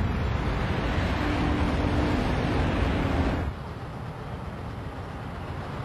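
Steady road traffic noise from cars and trucks crossing a multi-lane highway bridge. About three and a half seconds in it cuts off suddenly, leaving quieter street noise.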